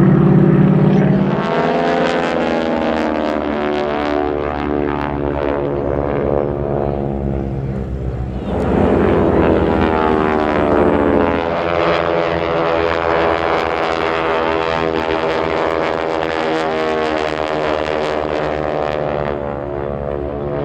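Piston-engined propeller aircraft running, a loud steady drone whose pitch changes abruptly about a second and a half in and again around eight and a half seconds.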